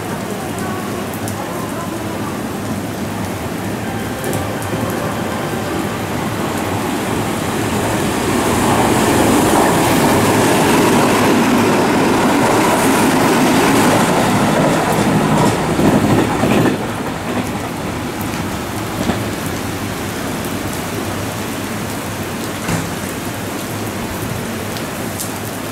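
Heavy rain falling steadily. About eight seconds in, a train runs through the station at speed, its rumble and spray noise swelling for about eight seconds over the rain before dropping away abruptly.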